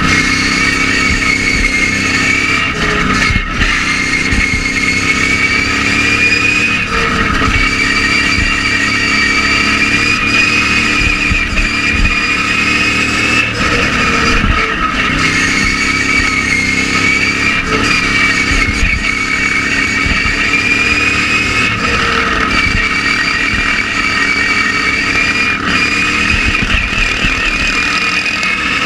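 Racing ride-on lawn mower engine running hard at high revs with a steady high whine, the engine note sagging briefly every few seconds as the throttle eases and picks up again.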